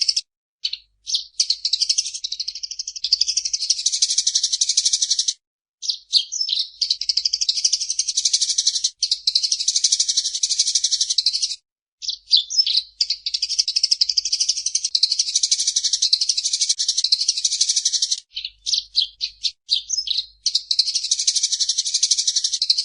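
Eurasian tree sparrow (burung gereja) chattering: long runs of fast, high chirps lasting several seconds each, broken by a few short pauses and scattered single chirps.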